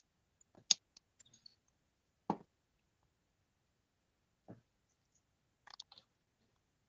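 Near silence broken by a few faint, scattered clicks and taps, the loudest about two seconds in.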